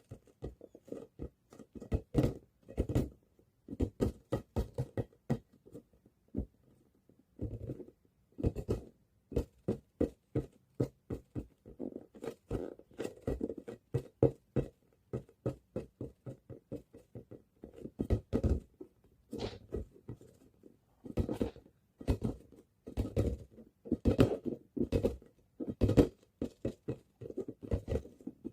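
A ball being bounced over and over, hitting in quick irregular runs of bounces with short pauses between them.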